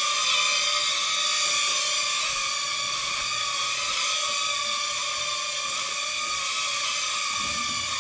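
The small motors and four propellers of a toy UFO flying aircraft running with a steady high whine, its pitch wavering slightly.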